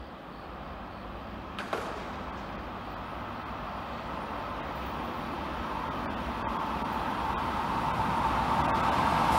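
Freight train hauled by an FS E652 electric locomotive approaching on the line, its running noise growing steadily louder. A single brief click is heard about a second and a half in.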